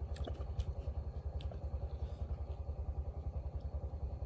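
A small engine running steadily nearby, a fast, even low throb, with a few light clicks of utensils against a bowl over it.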